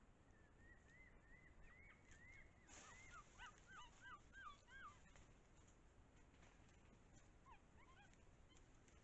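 Faint animal calls: a run of short whistled notes that rise and fall. They start soft and become louder and fuller near the middle, with a few more near the end. A brief rustle comes just before the louder calls.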